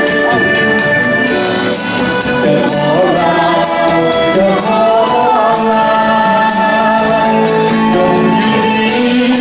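Live band playing Lao lam vong dance music, an electric guitar among the instruments, with a voice singing over it.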